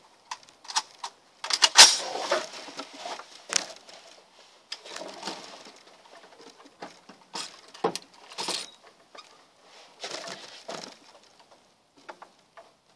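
Scattered knocks and clicks of an SKS carbine being handled and settled onto a wooden bench rest, the loudest about two seconds in.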